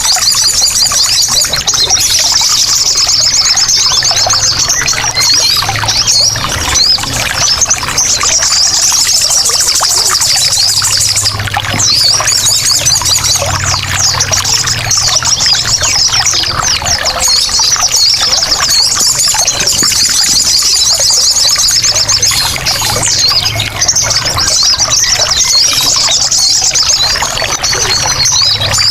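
Sogon birds chattering noisily in fast, high, repeated trills over continuously trickling water.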